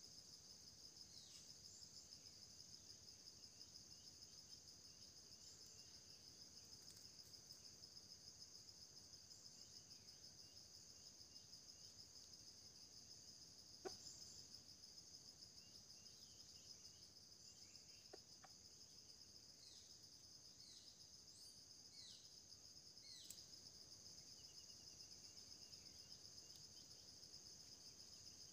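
Faint, steady high-pitched insect chorus, a continuous pulsing trill, with scattered short bird chirps and a soft click about halfway through.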